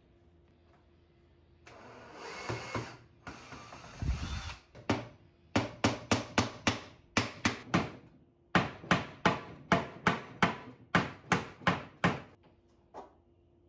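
Hammer blows on a glued-on wooden nightstand foot to knock it off: a quick run of sharp strikes, about three a second, with a short pause just past the middle. A couple of seconds of rough scraping noise come before the blows.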